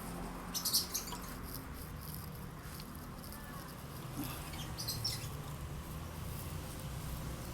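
Faint small metallic clicks and scrapes from a motorcycle exhaust dB killer being worked into the muffler tip, in a cluster about a second in and again about five seconds in, over a low steady hum.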